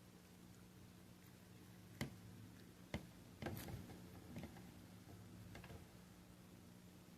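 A cat chewing crunchy dry kibble: a few sharp crunches about two and three seconds in, a quick cluster just after, then fainter ones, over a steady low hum.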